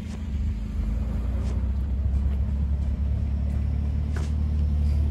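Car engine running with a steady low rumble that grows slightly louder.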